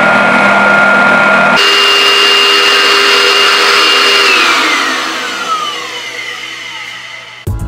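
Small canister vacuum cleaner running with a steady motor whine, then switched off about four seconds in, its whine falling in pitch as the motor spins down.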